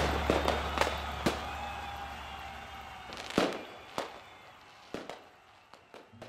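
Fireworks going off: a string of separate sharp bangs with echoing tails, about seven in all, the loudest about three and a half seconds in, as the last of loud music dies away at the start.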